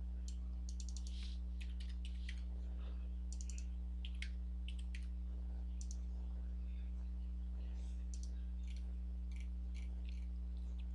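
Computer keyboard keys and mouse buttons clicking in scattered short taps as dimension values are typed in, over a steady low hum.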